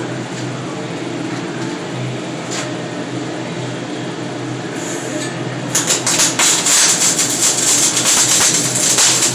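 A steady electrical hum, then about six seconds in a flux-core welding arc strikes and runs with a loud, continuous crackling sputter.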